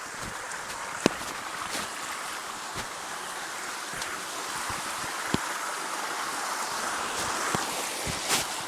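Steady rush of water from a cascading waterfall, swelling a little near the end, with scattered sharp clicks and taps.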